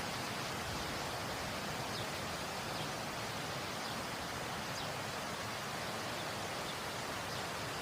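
Waterfall rushing steadily, with a few faint short high chirps over it.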